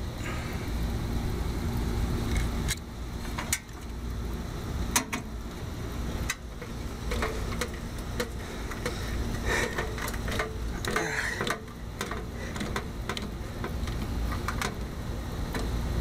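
Scattered metallic clicks and clinks of a screwdriver and wiring being handled in an air-conditioner condenser's electrical control panel, over a steady low rumble.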